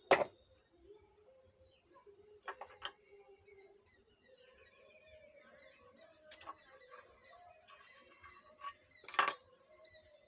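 A few sharp clicks and knocks of tools and the circuit board being handled during soldering work: the loudest right at the start, a quick pair about two and a half seconds in, and single ones around six and nine seconds in.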